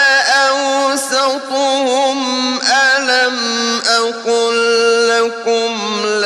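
Quran recitation in the mujawwad style: a solo male voice chanting in long, melodic held notes with ornamented turns, the pitch dropping a step about halfway through.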